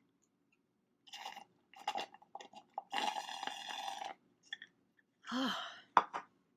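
A person noisily slurping water from a cup in several slurps, the longest lasting about a second, followed by a short sigh and a sharp knock near the end.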